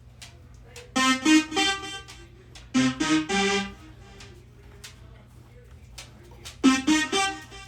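Korg RK-100S keytar synth tone played in three short phrases of a few notes each, about a second apiece, with pauses between them. It is demonstrating one of the keytar's preset tones.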